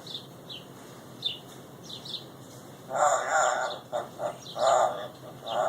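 Pet parrot vocalising: a few short high chirps in the first two seconds, then several rasping bursts of mimicked speech-like chatter from about three seconds in.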